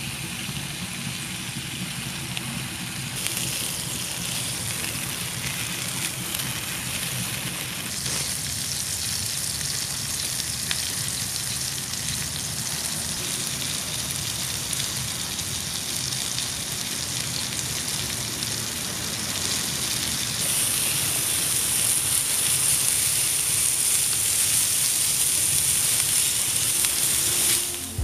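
Food sizzling as it cooks: a steady hiss that shifts a few times and grows louder and brighter in the last third.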